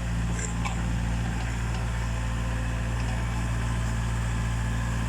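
A heavy machine's diesel engine running steadily at an even pitch, stepping up in level just as it begins and holding there.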